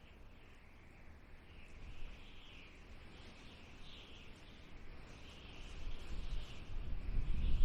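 Desert wind blowing, a wavering high whistling hiss, with a stronger low gust building over the last couple of seconds.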